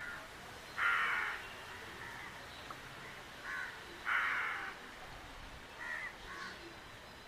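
Crow cawing: two loud caws, about a second in and about four seconds in, with a few fainter, shorter calls between and after them.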